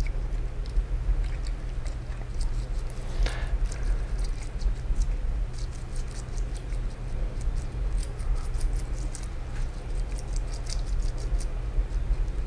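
Small metal differential gears and parts being scrubbed and handled in a solvent cleaning bath: quick scratchy brushing strokes and light clicks of metal parts, over a steady low hum.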